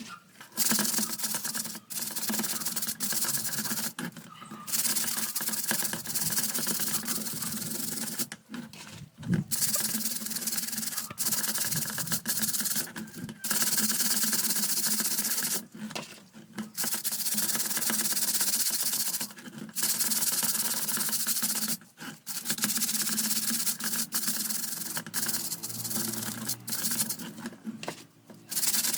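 Scrubbing and rubbing on an electric fan's parts during cleaning, a dry rasping sound in stretches of a few seconds with short breaks between strokes.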